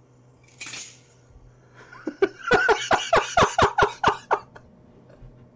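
Men laughing hard: a rapid run of about a dozen 'ha' bursts, about four a second, from about two seconds in to about four and a half seconds. A short breathy hiss comes under a second in.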